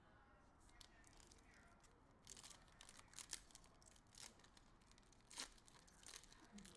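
Foil wrapper of a trading-card pack being torn open and crinkled, faintly, as a string of short crackles from about two seconds in to past five seconds.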